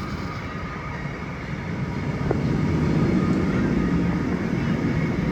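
Roller coaster train running on its track during an unmanned test run, a low rumble that swells toward the middle and then eases a little.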